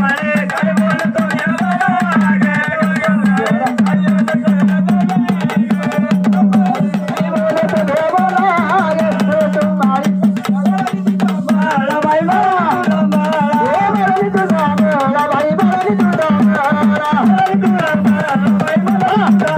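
Gondhal folk music: fast, continuous sambal drumming with a wavering melody line over it.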